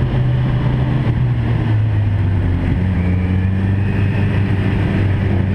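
Vehicle engine running with a steady low drone in a road tunnel; its pitch drops a little just under two seconds in, then holds.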